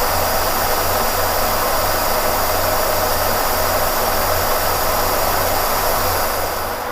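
Kearney & Trecker horizontal/vertical knee mill taking a finishing cut on a steel block: steady machine and cutting noise with a strong hiss and a low hum, cutting off abruptly at the end.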